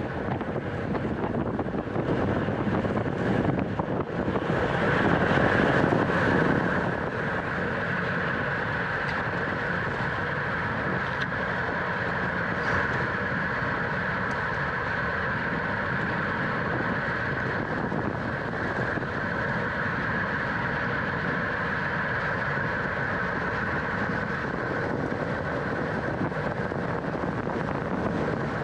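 Steady rush of wind and road noise on a racing bicycle's onboard camera microphone at speed. It swells for a few seconds around five seconds in.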